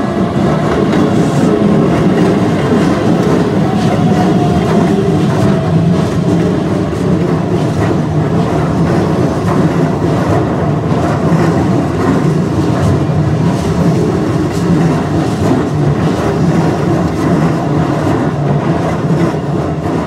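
Hokuso Railway electric commuter train passing close by, its wheels clattering steadily over the rail joints as the cars roll through.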